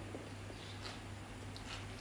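Faint eating sounds: soft chewing with a few small mouth clicks and smacks, over a steady low hum.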